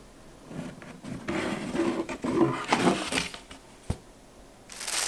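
Lid of a rigid cardboard gift box scraping and rubbing as it is worked off the box, with a single tap about four seconds in. Tissue paper starts crinkling near the end.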